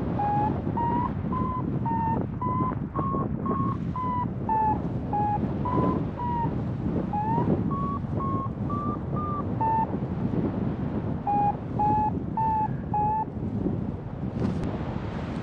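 Paraglider's variometer beeping in short tones, about two a second, its pitch drifting up and down with the climb rate, which signals the glider is climbing in lift. Wind rushes steadily on the microphone underneath. The beeps stop for about a second and a half past the middle, then resume at a lower pitch.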